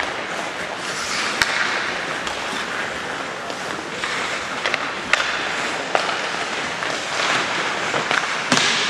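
Ice hockey play: skate blades scraping and hissing on the ice in swells, with several sharp clacks of sticks and puck, the loudest about a second and a half and five seconds in.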